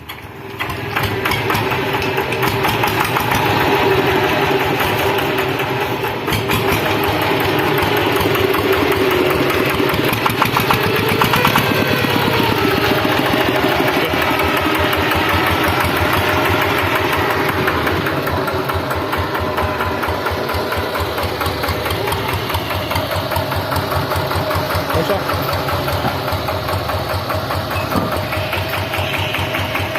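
Changfa single-cylinder diesel engine starting up about half a second in, then running steadily with a rapid, even firing beat. The owner says the engine has started to cough.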